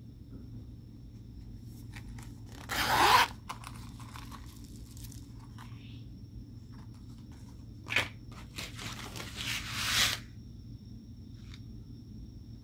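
Slime being worked by hand, pulled and squeezed so it crackles and tears. There are two noisy bursts, a short one about three seconds in and a longer one near the middle that builds up, with a click between them.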